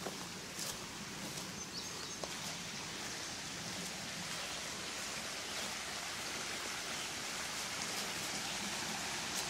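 Steady rush of a river running high, growing slightly louder, with a few faint ticks in the first couple of seconds.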